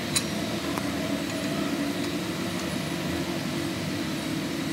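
Steady machine hum in a workshop, with a single sharp metal clink just after the start.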